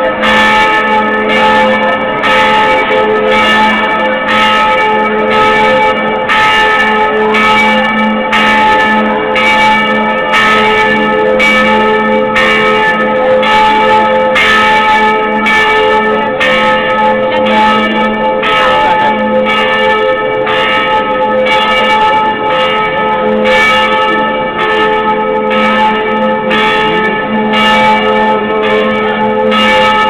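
Church bells of the Montserrat basilica ringing loudly and without pause, fresh strokes coming about every three-quarters of a second while earlier tones keep ringing under them.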